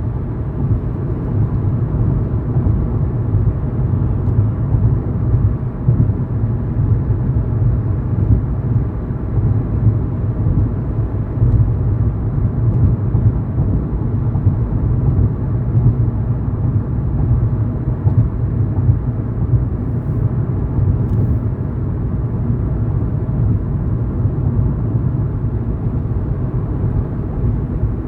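A car driving at a steady speed: a continuous low rumble of road and engine noise that stays even throughout.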